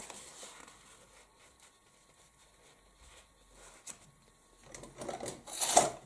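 Folded cardstock rubbed and pressed flat by hand on a cutting mat: faint paper rubbing, then a short, louder paper rustle near the end.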